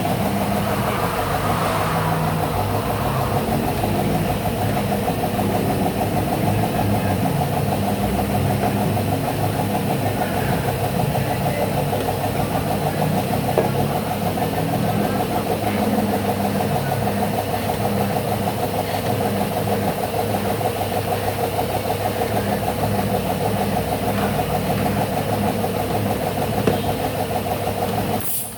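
Motor-driven tyre-shop machinery running steadily with a fast, even rattle.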